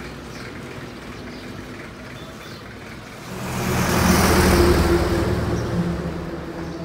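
A motor vehicle's engine and tyres approaching and passing close along the road, swelling from about three seconds in, loudest a second or two later, then fading while a low engine hum lingers.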